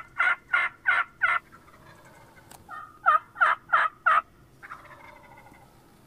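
Hen turkey yelping: a run of about five evenly spaced yelps, a pause, then about three seconds in another run of five, about three a second. It is the hen call used to bring a gobbler in.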